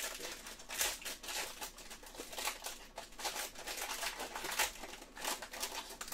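Silver foil wrapper of a trading-card pack crinkling and tearing as it is twisted and pulled open by hand, a continuous irregular crackle.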